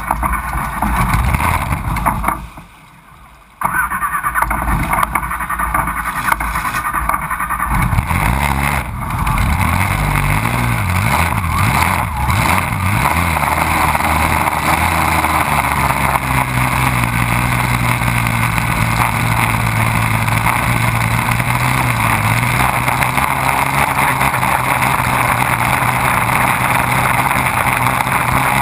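Race boat engine running hard, dropping away for about a second a couple of seconds in, then picking up and climbing in pitch as the boat accelerates. From about halfway on it holds a steady high engine note at speed, with water spray rushing behind the stern.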